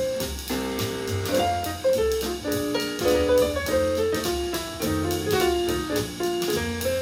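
Jazz track playing through a JVC RV-NB70 Kaboom boombox's speakers, with a strong bass line.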